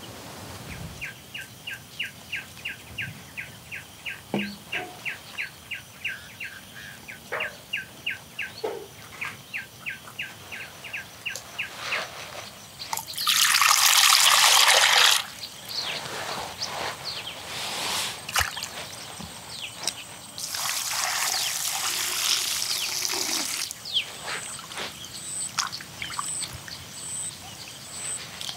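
Water poured in a stream into an earthenware pot, splashing loudly for about two seconds near the middle, with a second stretch of splashing a few seconds later. Before the pouring, a run of high, evenly spaced chirps, about three a second.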